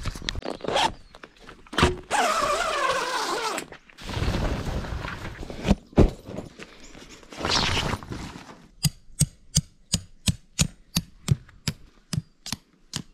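Camping gear being handled, with scraping, rustling, a brief squeal and a few thumps. From about nine seconds in comes a steady run of hammer blows, about three a second, driving a tent peg for a canvas swag into the ground.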